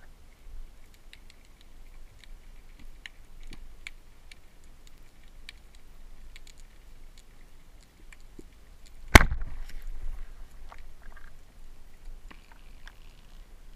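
A wooden band-powered speargun fires once underwater about nine seconds in, a single sharp crack followed by a short rattling tail as the shaft and line run out. Before the shot there are only faint, scattered underwater clicks.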